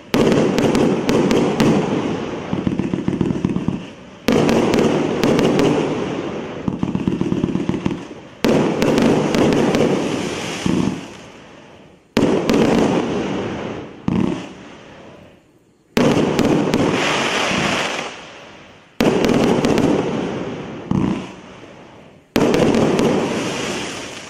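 A 348-shot, 1.25-inch fireworks cake firing in volleys, about one every three to four seconds. Each volley is a rapid string of launches and bursting breaks that starts suddenly and fades out.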